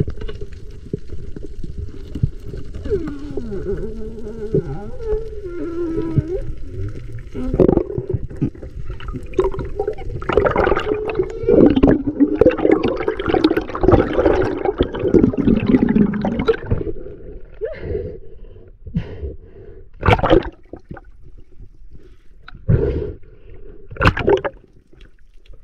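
Muffled underwater sound picked up by a diving camera: water rushing and gurgling against the housing, louder through the middle, with several sharp knocks in the last few seconds.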